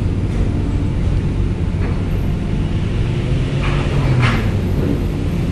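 Cars driving off a ferry down a steel loading ramp, over a steady low hum from the docked ship. A louder rushing noise swells a little under four seconds in.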